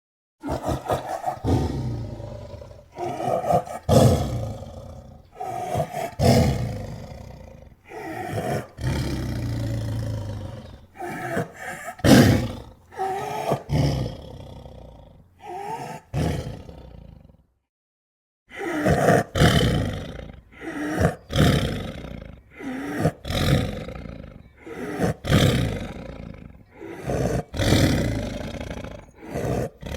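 Big-cat roars and growls made as sound effects for an extinct Mosbach lion: a string of separate calls one after another, with a short silence a little past halfway.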